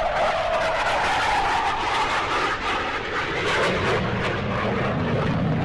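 Douglas A-4 Skyhawk jet making a fast flyby: a loud, steady jet rush with a whine that falls in pitch as it passes, the sound turning deeper near the end.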